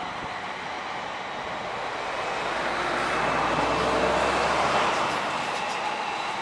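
Electric multiple-unit passenger train passing close by. Its wheels run over the rails in a steady rush that grows louder to a peak about four seconds in, then eases off.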